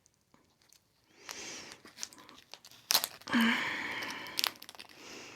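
Plastic packaging of a marinated egg crinkling and tearing as it is pulled open, with a sharp snap about three seconds in.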